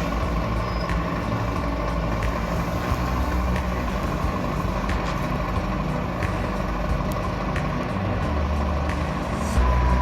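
Heavy truck's diesel engine running with a steady low rumble, growing a little louder near the end.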